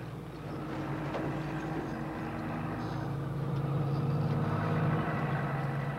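Heavy diesel engine of an earth-moving machine running steadily, growing louder over the first five seconds.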